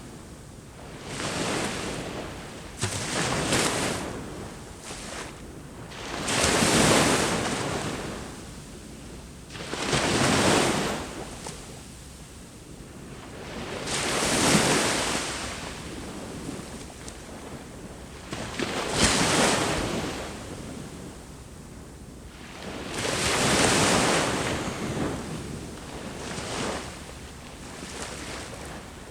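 Ocean waves breaking on the shore, each surge of surf swelling up and washing away about every four seconds.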